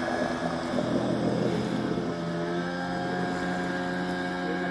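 A boat's outboard motor running at a steady speed, holding one even pitch.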